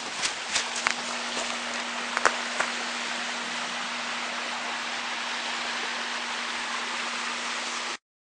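Steady rain-like hiss with a low steady hum under it and a few sharp clicks in the first few seconds, cutting off abruptly to silence near the end.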